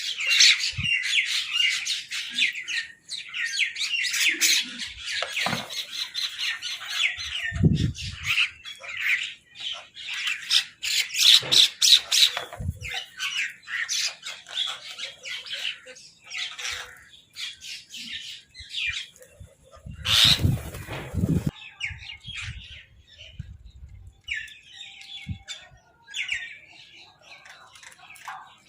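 Crows and other birds squawking and chattering in a dense, overlapping din of rapid harsh calls, thinning to scattered calls in the second half. A couple of low thumps come in the first half, and a brief rushing noise comes about twenty seconds in.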